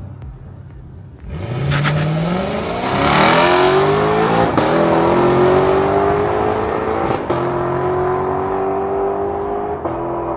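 Lexus LC500's 5.0-litre naturally aspirated V8 accelerating hard away under full throttle, its pitch rising steadily, with a short break at each upshift about halfway through and again later.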